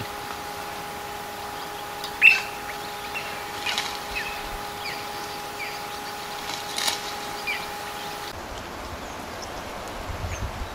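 Birds chirping: short falling chirps every half second or so, with a few sharp, louder calls, the loudest a little over two seconds in. A steady hum runs beneath them and stops suddenly about eight seconds in, where the background changes.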